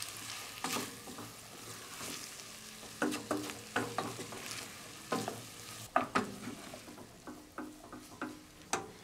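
Wooden spatula stirring cooked pearl barley in a stainless steel pot, with about ten irregular knocks and scrapes of the spatula against the pot. A faint sizzle comes from the pot on the lit burner.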